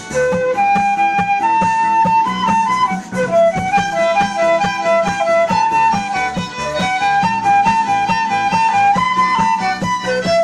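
Instrumental music: a violin-like melody of held notes over a steady beat and bass line.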